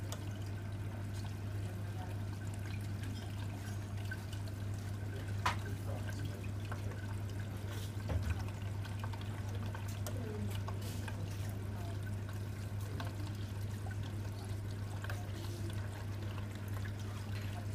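Water trickling in a reef aquarium's circulation over a constant low pump hum, with a single sharp tick about five and a half seconds in.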